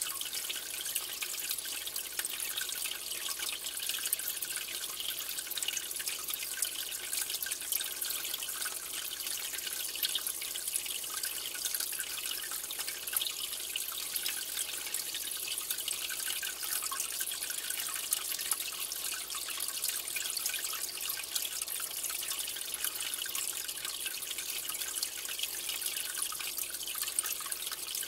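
Aquarium water running steadily, splashing and bubbling at the surface from the tank's filter or aerator. It makes a continuous trickle with a fine crackle of tiny splashes.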